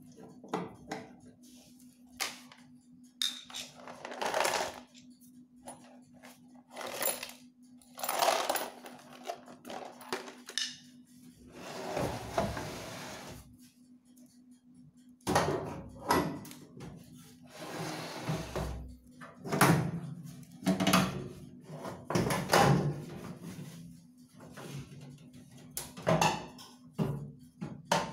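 Handling noises from microwave repair work: a string of irregular clicks, knocks and scrapes of metal parts and tools, with a steady low hum underneath.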